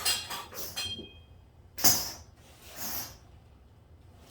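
Steel motorcycle fork springs and spacers clinking together as they are handled, a short clatter with a faint ring in the first second. Two brief swishes follow, about a second apart.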